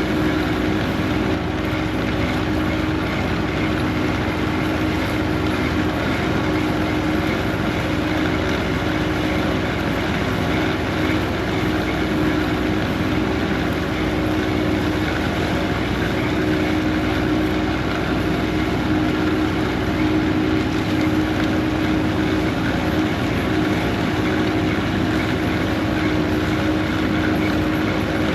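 Heavy machinery running steadily: an even engine drone with a constant hum and no change in speed or load.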